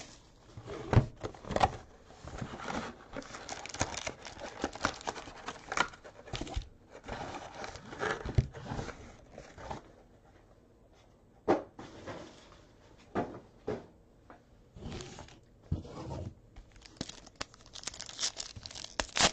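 Wrapping of a box of football trading cards being torn open and its packs crinkled, in irregular rustling tears and crackles with a quieter stretch about halfway through.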